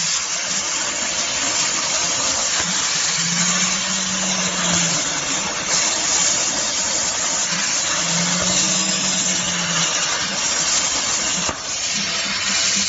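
CNC plasma cutting torch's arc hissing steadily as it cuts through a square metal tube, with a low hum that comes in twice for a couple of seconds.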